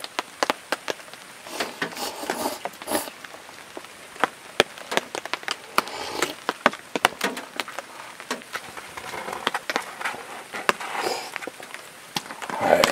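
Instant ramen noodles being slurped from a cup in a few short bursts, among irregular sharp ticks.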